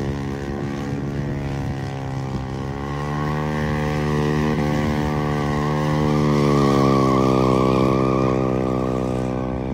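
Motorcycle engine running steadily. Its pitch climbs slowly over the first few seconds and sinks again toward the end, and it is loudest a little past the middle.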